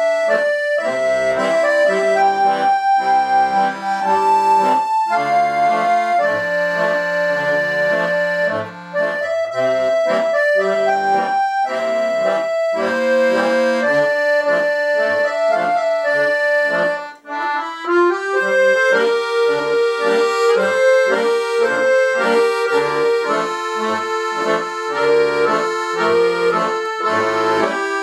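Two piano accordions playing a duet, a melody over sustained chords and bass notes. There is a brief gap a little past halfway, after which the melody goes on in a lower register.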